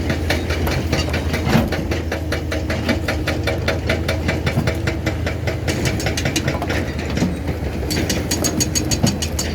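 Doosan 480 excavator's diesel engine idling steadily, with an even, rapid clatter over a low hum.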